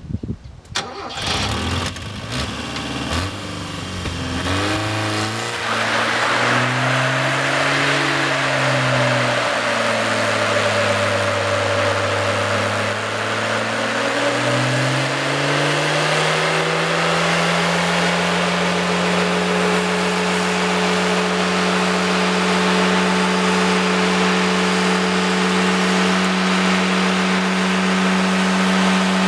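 Mazda 626 engine revved hard during a burnout, its driven wheels spinning and smoking the tyres, over a steady rushing hiss. The revs climb and rise and fall for the first half, then hold steady at high revs for the last ten seconds or so.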